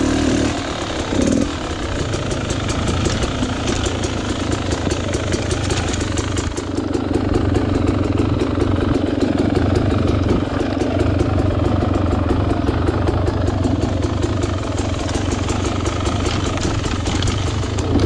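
Dirt bike engine running steadily at low revs, getting a little louder from about seven seconds in.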